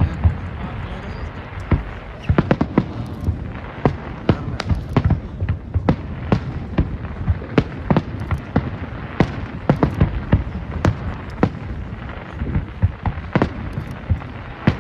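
Fireworks going off in a rapid, irregular series of sharp bangs and crackles, several a second, over a steady rumble of background noise.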